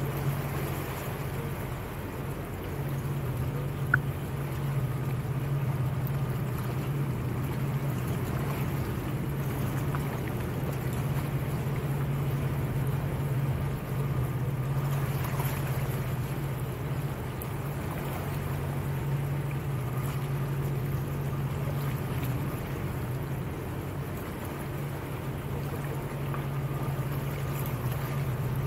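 Motorboat engine running steadily with a low, even drone, water washing along the hull, and a single brief click about four seconds in.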